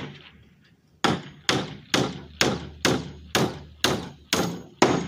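Hammer driving a nail into a wooden speaker box panel: about nine steady blows, roughly two a second, starting about a second in, each ringing briefly.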